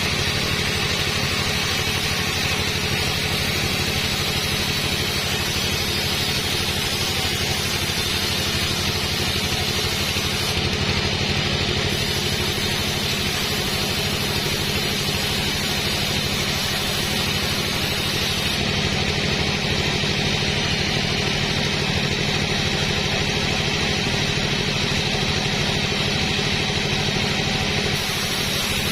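Sawmill machinery running steadily: a continuous engine-like drone at an even level with no pauses.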